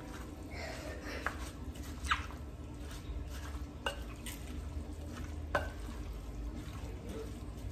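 A plastic spoon stirring a chunky, mayonnaise-dressed tuna salad in a glass mixing bowl, with the spoon clicking and scraping against the glass a few times.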